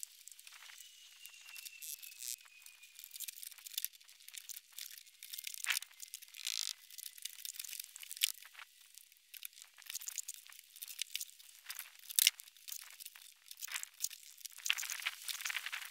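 Steel pointing trowel scraping and pressing lime mortar into the joints of a stone wall: irregular gritty scrapes with a few sharper strokes.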